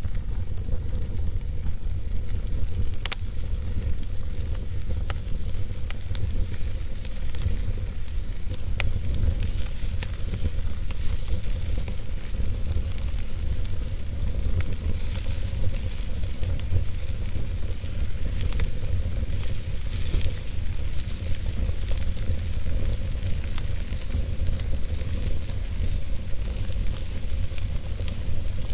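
Wood fire burning in an open-hearth fireplace: a steady low rumble and hiss of the flames with scattered sharp crackles and pops of the burning logs.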